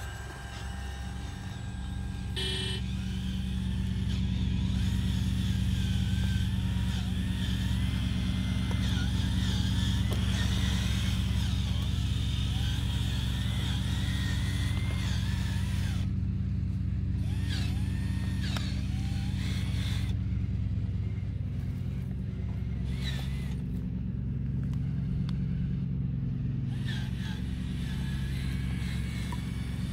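Radio-controlled Cat construction model running: a steady, low engine-like hum that shifts pitch up and down about 22 to 27 seconds in. Short high chirps sound over it throughout.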